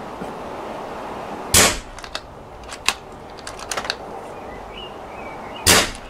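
Two shots from an air rifle fitted with a CK (Cliff Kirtman) silencer, about four seconds apart, each a sharp, suppressed crack, with a few small clicks between them.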